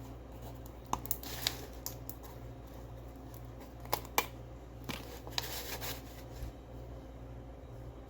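A few light clicks and taps of hand-handled parts, with a short scraping rustle past the middle, over a steady low hum.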